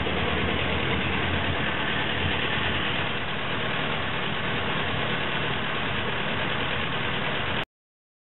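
Ferguson TED20 tractor's four-cylinder engine idling steadily after being adjusted. The sound cuts off suddenly near the end.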